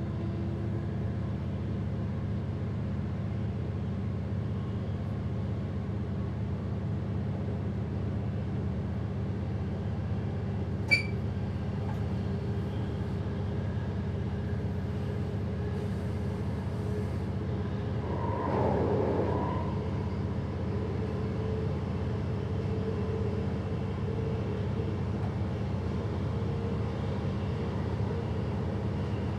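Train running, heard from inside the driver's cab: a steady low rumble and hum. There is a sharp ringing click about eleven seconds in, and a brief louder swell about two-thirds of the way through.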